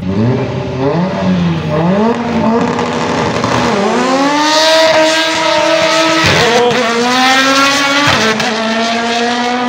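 Mitsubishi Lancer Evolution's turbocharged four-cylinder engine launching and accelerating down the drag strip, its pitch climbing and dropping back at each of several upshifts.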